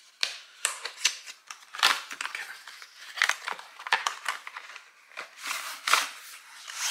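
Cardboard box being pried open by hand, its tucked end flap scraping and crackling free, then a rolled cloth mouse pad sliding out against the cardboard. Heard as a run of irregular crackles and scrapes.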